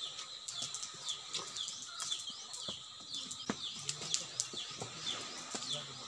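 Small birds chirping in a steady stream of short, falling chirps, several a second. Scattered faint clicks and taps from eating by hand run through it.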